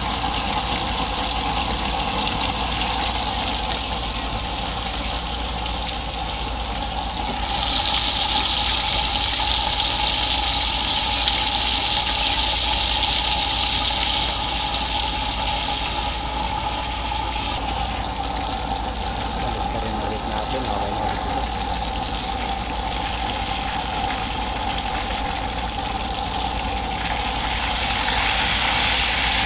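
Tilapia frying in a pan of hot oil: a steady sizzle that grows louder for several seconds about a quarter of the way in, and again near the end.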